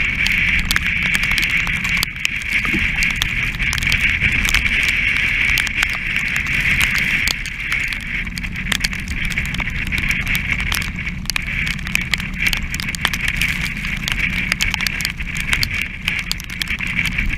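Strong wind buffeting a deck-mounted camera on a heeled sailing yacht, with a steady rushing hiss and a low rumble of the boat moving through rough sea. Many small sharp ticks, like spray striking the camera, run through it.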